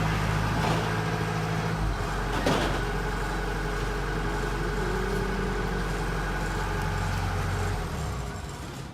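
Heavy vehicle engine running steadily, with a short knock about two and a half seconds in; the engine sound drops away near the end.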